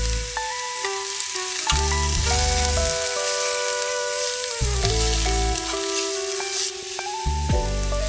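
Onions and mushrooms sizzling in a frying pan while chopsticks stir corn starch into them. The sizzle is loudest in the middle, over background music with held notes and a bass line.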